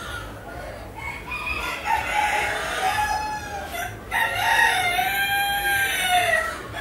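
Roosters crowing: two long crows one after the other, the first starting about a second in and the second just past the middle, each rising and then falling in pitch.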